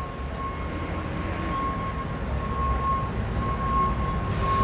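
Steady low rumble of an idling vehicle engine, with a faint steady high-pitched whine over it, growing slightly louder toward the end.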